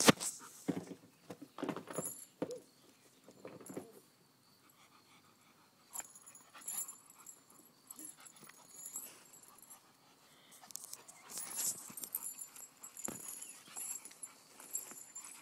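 A dog breathing and scuffling about on sandy ground in irregular bursts while it chases a fishing lure. There is a faint high, thin whine in the background that comes and goes from about halfway through.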